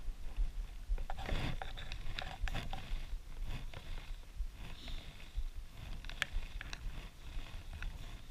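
Low, uneven rumble of wind on the microphone with scattered small clicks and scrapes, a cluster about a second in and a sharp click near six seconds in.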